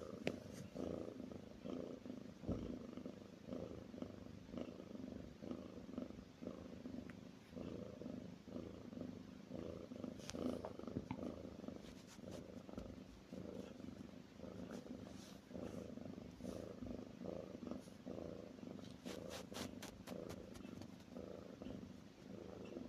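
Snoring: a low, rough, purring rattle that keeps repeating steadily.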